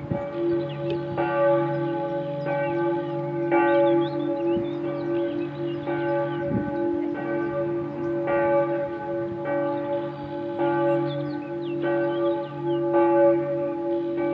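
Church bells pealing: several bells struck in turn, roughly one strike a second, with their low hum ringing on steadily underneath.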